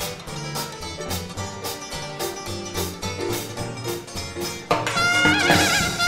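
A 1920s-style jazz dance band playing with a steady beat. About three-quarters of the way through, the brass comes in louder, the horns holding notes with vibrato.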